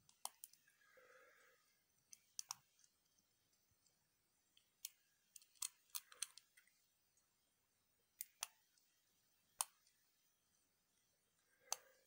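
Faint, irregular sharp metallic clicks from a lock pick and tension wrench working the six-pin core of a Chateau disc padlock, the pick clicking against the pins and keyway. There are about a dozen clicks, some in close pairs. The lock has not opened yet.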